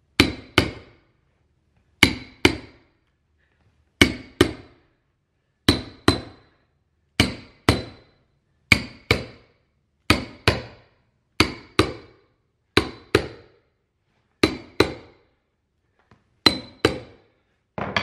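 Hammer striking a metal stair tucking tool, driving carpet into the crease between tread and riser: sharp strikes with a slight metallic ring, in pairs about half a second apart, a pair every second and a half or so.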